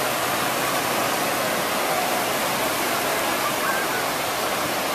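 Surf washing onto a beach, a steady rushing noise.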